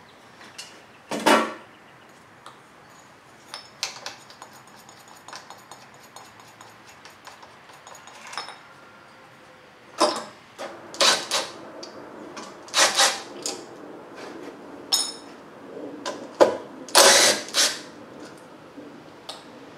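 Scattered metallic clinks, knocks and scrapes of hand tools and engine parts as the air cleaner cover and filter are taken off a lawn mower engine. The clanks come more often and louder in the second half.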